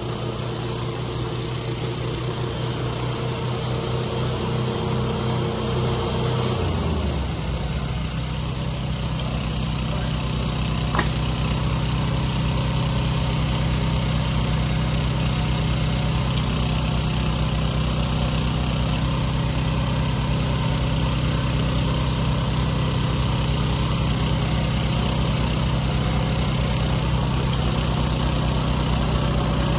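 Engine of a Wood-Mizer LT28 portable band sawmill running fast, then dropping to idle about seven seconds in and idling steadily after that.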